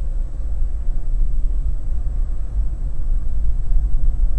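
Steady low rumble of road and engine noise inside a moving car's cabin, growing slightly louder.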